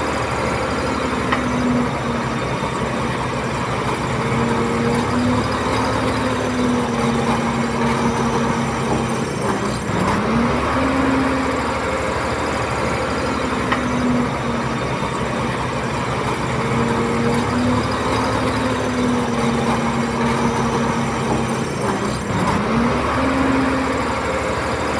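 Komatsu D31P bulldozer's diesel engine working steadily. Its pitch drops and climbs back up twice, about ten seconds in and again near the end, as the load on the engine changes.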